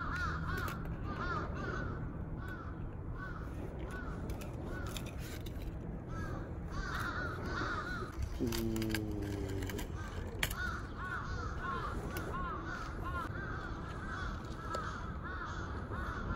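Crows cawing over and over, short calls following each other quickly. A lower, falling call comes briefly about eight and a half seconds in, and a sharp click about ten seconds in.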